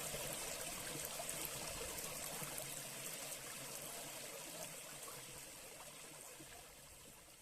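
Small brook flowing steadily, a continuous rush of running water with small splashes, slowly fading out.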